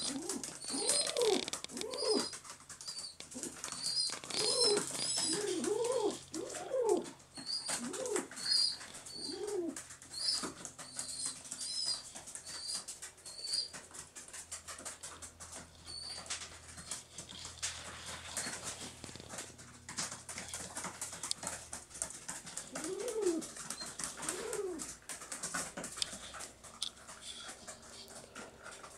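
Pigeon squab (squeaker) begging for food with short, high-pitched peeps, about two a second, that die away about halfway through. Lower rising-and-falling pigeon coos come in among the peeps and twice more near the end.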